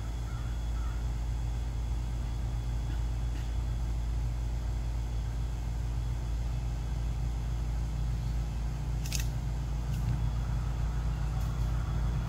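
A steady low mechanical hum, with a single short click about nine seconds in.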